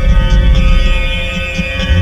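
Noise music: a loud, dense drone of heavy low rumble under many steady held high tones.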